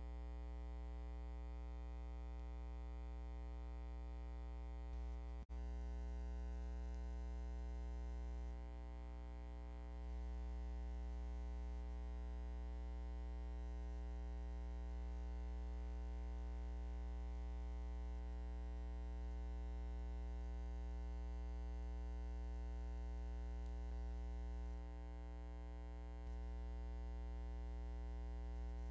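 Steady electrical hum with a buzz of many evenly spaced overtones, with a brief dropout about five seconds in.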